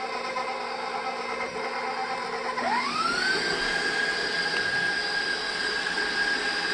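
KitchenAid bowl-lift stand mixer running with its flat beater through a thick cream cheese filling. About two and a half seconds in, its motor whine rises steeply in pitch as it is switched up to whipping speed, then holds steady.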